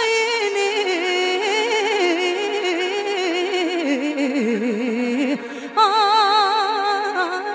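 Live Romanian folk music: a female singer draws out a slow doina phrase in long, heavily ornamented notes with a wide, fast vibrato over the band, breaking briefly about two-thirds through before rising to a higher phrase.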